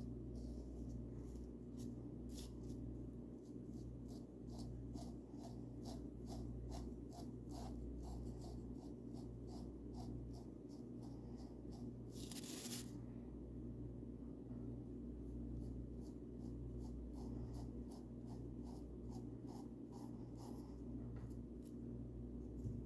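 Paintbrush bristles brushing paint onto a wooden birdhouse in quick, repeated short strokes, about two or three a second, with one longer, hissier stroke about twelve seconds in. A steady low hum lies underneath.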